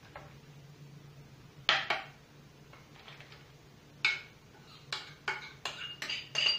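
Glass mixing bowl clinking as a vegetable mixture is scraped out of it into a baking dish: two sharp clinks a little before two seconds in, then from about four seconds a run of ringing clinks that come faster and faster.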